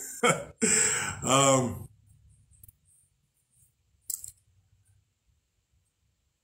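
A man speaking into a close microphone for about two seconds, then near silence broken by one short click about four seconds in.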